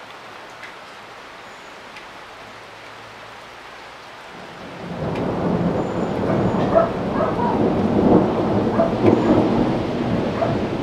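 Steady rain falling, then about four seconds in a long roll of thunder swells up and keeps rumbling, much louder than the rain.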